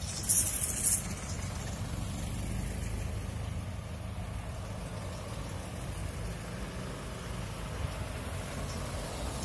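Vintage cars and a truck, among them a Ford Model T, driving slowly past one after another, their engines running at low revs with a steady low rumble. A brief loud hiss comes about half a second in.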